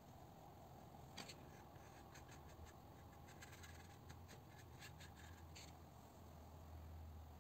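Faint, soft scratching of a watercolour brush stroking across paper in a few short, irregular strokes, over a low steady hum.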